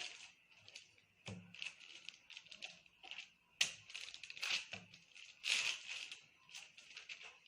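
Irregular rustling, crinkling and scraping noises of hands working with food and kitchen things, with a faint steady high hiss underneath.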